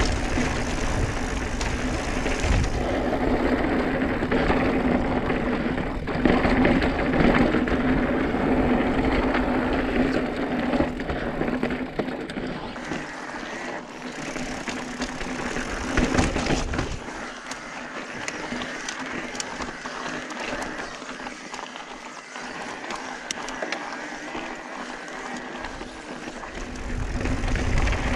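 Mountain bike rolling over slickrock sandstone: tyre noise on the rock with scattered clicks and rattles from the bike. It is louder for the first half and quieter from about halfway through.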